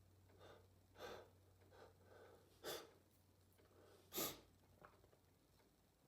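Three short, sharp sneezes about a second and a half apart, the last the loudest, with fainter sniffs and breaths between them.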